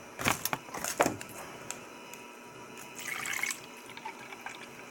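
Water poured from a bottle into a drinking glass, with a couple of sharp handling clicks in the first second.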